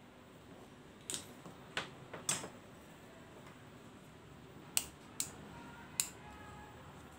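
Sharp plastic clicks and light knocks, about six in all and spaced irregularly, from the slow cooker's white plastic power plug and cord being picked up and handled.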